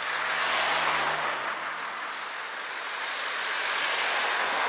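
Two road vehicles drive past close by, one after the other: a car, its tyre and engine noise swelling and fading with the engine note falling as it goes by, then a van passing near the end.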